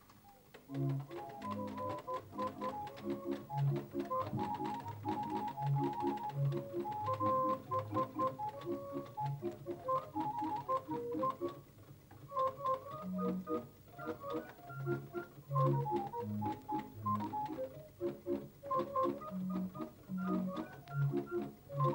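Organ music with a quick melody of short notes over a stepping bass line, starting about half a second in.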